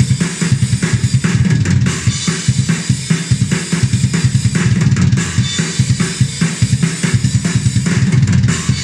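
Programmed metal drum beat played back through Ugritone's KVLT Drums II sampled-drum plugin, default kit, at 145 bpm: a fast, dense kick drum under snare and cymbals. The Humanize control is turned down to 0% a few seconds in, leaving every hit at an exact, even velocity that sounds more synthetic.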